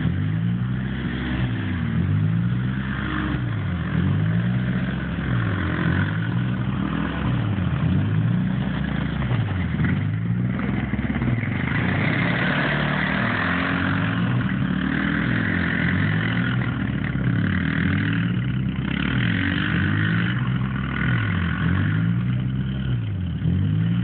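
A motor vehicle engine revving up and down over and over in a steady cycle, about once every second and a half, with a second engine sound coming in strongly about halfway through.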